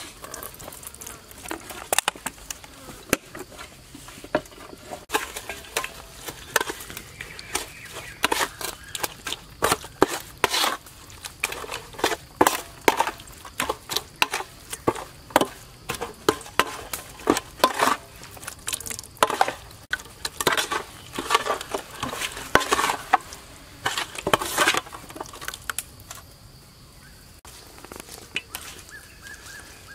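Wet chili paste being stirred and pounded with a wooden pestle in a large metal basin: irregular, sharp wet knocks and splats, one or two a second, stopping near the end. Insects buzz steadily in the background.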